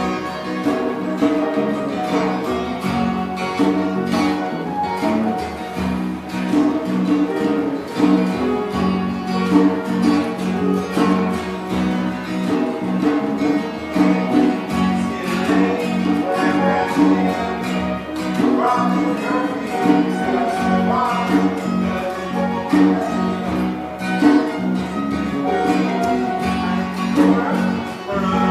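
Background music led by plucked guitar over a steady held low note.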